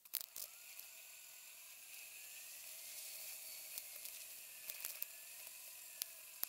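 Bicycle rolling along a paved trail, heard through a bike-mounted camera: a steady hiss with a faint whine that wavers slowly in pitch, and scattered sharp clicks and knocks.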